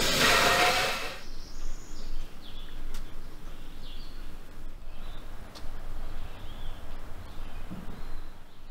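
A loud hiss of steam from the Lombard steam log hauler cuts off about a second in. It gives way to a quieter outdoor background of birds chirping over a faint steady low hum.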